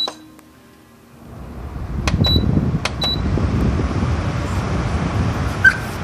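Electric tower fan switched on, its airflow rising to a steady rush within about a second, with short high button beeps from its control panel at the start and again about two and three seconds in.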